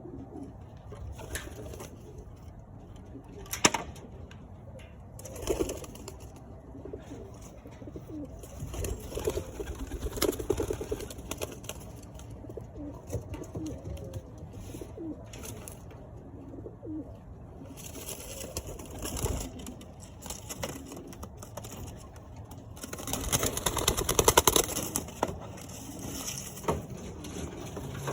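Domestic pigeons cooing repeatedly in a loft, with a sharp knock about four seconds in and a loud, noisy flurry of scuffling about three-quarters of the way through.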